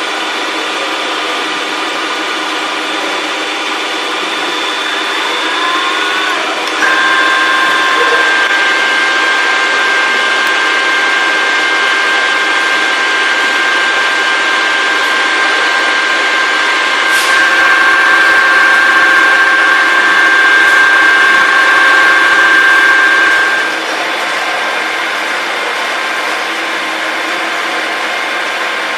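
KNUTH R50 radial drilling machine running, a steady mechanical whine made of several held tones. The whine steps up about seven seconds in, grows louder around seventeen seconds, and drops back near twenty-four seconds.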